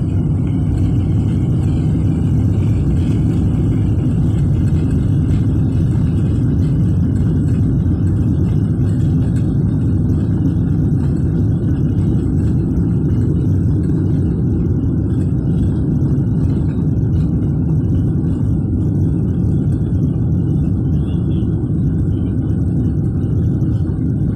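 Jet airliner engines and airflow heard as a loud, steady rumble inside the passenger cabin during takeoff.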